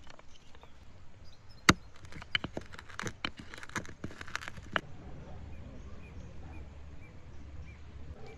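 Wooden pestle pounding whole peppercorns and seeds in a carved wooden mortar: a quick run of about a dozen sharp knocks and crunches over some three seconds, the first the loudest.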